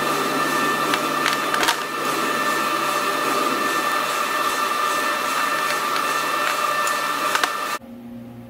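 Steady hum of shop machinery running, with a few light clicks as the steel tool holder is handled on the bench. Near the end the hum cuts off abruptly and a quieter, lower hum takes over.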